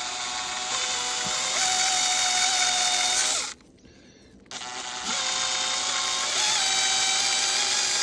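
Cordless drill spinning a radio knob against a scouring sponge to scrub its face clean: a steady motor whine whose pitch steps up a few times. It stops for about a second midway, then starts again.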